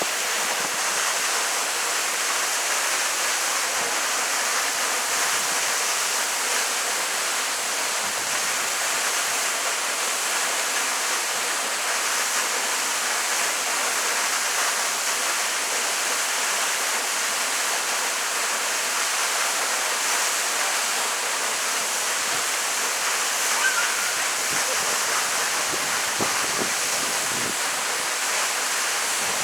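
Waterfall: water falling in a steady, even rush of hiss, bright and high with little low rumble.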